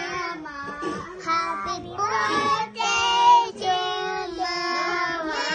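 Children singing a birthday song, with held notes in a steady melody.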